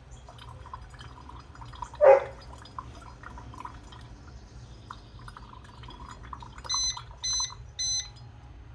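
Drip coffee maker's electronic beeper sounding three short beeps near the end. About two seconds in there is a single short, loud clunk, with faint ticks and drips in between.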